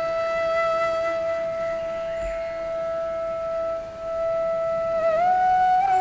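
Slow, calm music: a single melody note held for about five seconds, then a short slide up to a slightly higher note near the end.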